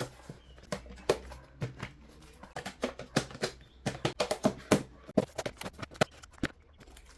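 Irregular sharp clicks and taps of hard plastic containers and dried legumes being handled, several a second at times, busiest in the second half.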